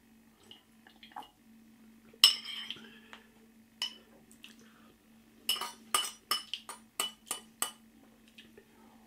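A ceramic bowl set down with one clink, then a metal spoon clinking against it about eight times in quick succession, roughly three a second, as the last of the noodles and broth are scooped out.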